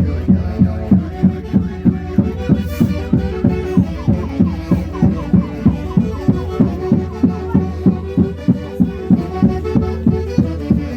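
Andean folk orchestra playing, with a pounding drum beat about three times a second under a melody.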